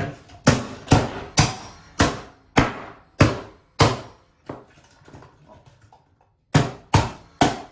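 Sharp knocks on a Mac Mini's casing as it is banged back together: about seven blows roughly every half second, a pause, then three more near the end.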